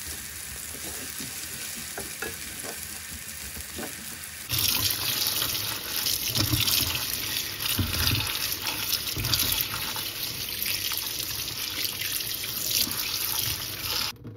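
Chopped onion sizzling in hot oil in a frying pan while a wooden spatula stirs it. About four and a half seconds in, this changes abruptly to a louder rush of water in a sink as chopped bok choy in a plastic colander is washed and turned over, with dull knocks among the leaves.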